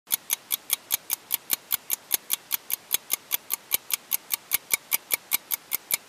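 Ticking timer sound effect: fast, even, crisp ticks at about five a second.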